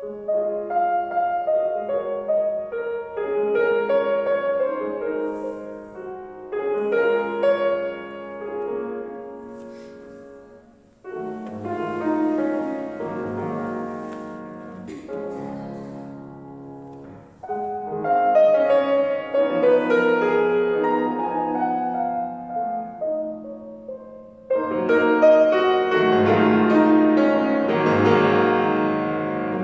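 Solo grand piano playing classical music in phrases several seconds long, each one starting with a fresh chord and dying away before the next.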